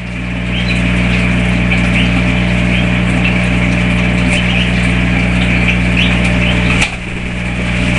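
A small motor running with a steady low hum; a click about seven seconds in, after which the hum briefly dips before returning.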